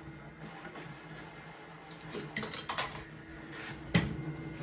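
Small hard clicks and clacks of an OO-gauge model locomotive being handled on its track: a quick cluster of clicks about two and a half seconds in and one sharp click near the end, over a steady low hum.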